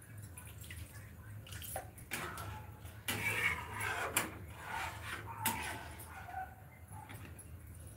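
Cooking in a steel kadai: water poured from a plastic mug into simmering curry gravy, and a metal spatula scraping and clinking against the pan as it is stirred, with a low steady hum underneath.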